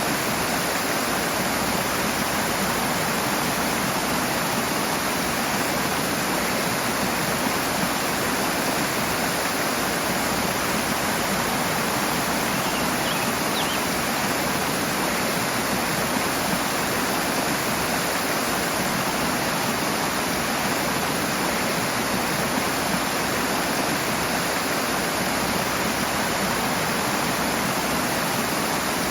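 Rushing water from a stream or cascade, a steady, even rush.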